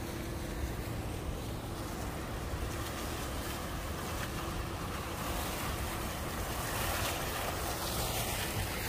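Steady rushing of wind buffeting the microphone, with the splashing of a small courtyard fountain's jets getting louder in the second half.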